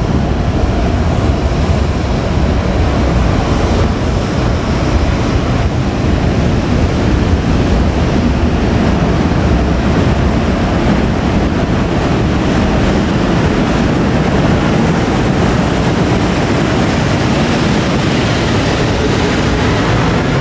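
Freight train hauled by an EF510 electric locomotive rumbling steadily past, with wind noise on the microphone.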